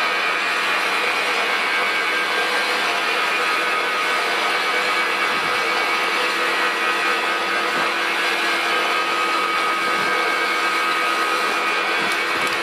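Metal lathe running steadily with a constant whine from its drive while the tool faces the end of a brass threaded fitting.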